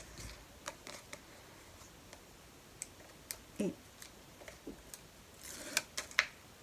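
Quiet paper handling: scattered light ticks and rustles of paper strips being handled, as the backing is peeled off paper stuck with double-sided tape. A few sharper clicks come close together near the end.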